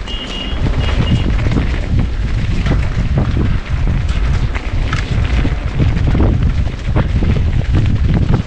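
Mountain bike descent on a rough dirt trail: wind buffets the microphone as a heavy rumble, and the bike rattles and knocks over the bumps many times a second. A brief high-pitched squeal comes in the first second.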